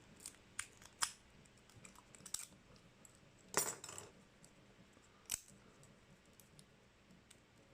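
Faint metallic clicks and scrapes of a lock pick working in a Delta padlock's keyway, scattered irregularly, the loudest a little after one second and about three and a half seconds in.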